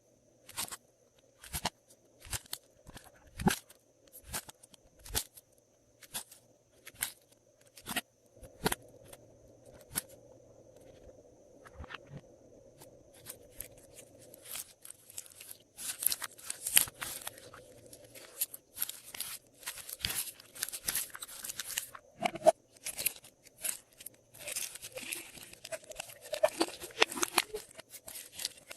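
Glossy slime worked by hand, making sticky clicks and pops. They come singly at first, then turn into dense crackling about halfway through.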